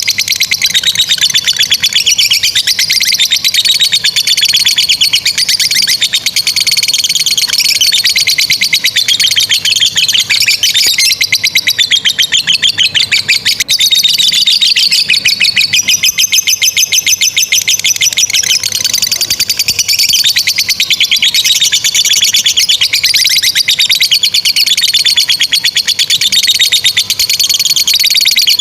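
Lovebird singing 'ngekek panjang': a long, unbroken, rapid high-pitched chattering song that keeps going without a pause.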